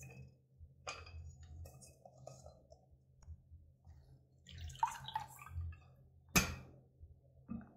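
Water dripping from freshly drained boiled beans in a plastic colander, with scattered clicks and knocks as the colander is handled. The loudest, a single sharp knock, comes about six seconds in.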